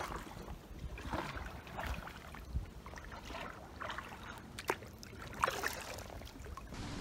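Kayak paddle dipping into calm water, with light splashes and drips at irregular intervals.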